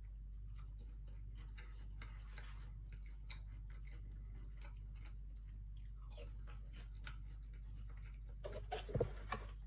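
A person chewing thick fried potato, with soft crunches and mouth clicks. A louder cluster of knocks comes near the end.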